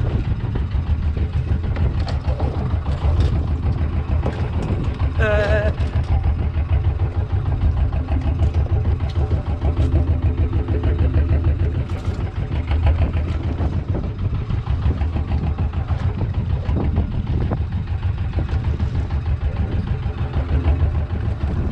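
Engine on a fishing boat running steadily at a constant pace, with a deep, even hum. A brief wavering voice-like call about five seconds in.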